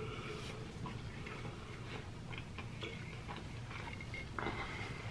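Faint eating sounds: scattered small clicks and smacks of chewing, over a low steady hum.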